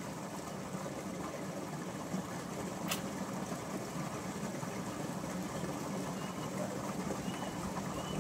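A steady low hum over an even background hiss, with one sharp click about three seconds in and a few faint high chirps near the end.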